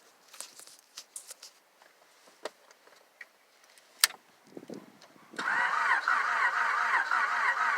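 A few light clicks and one sharp click about four seconds in. Then, from about five and a half seconds, the 2000 Honda Accord LX's starter cranks the engine steadily with a fast, even, repeating whir, and the engine does not catch: a no-start that the owner suspects is down to the timing.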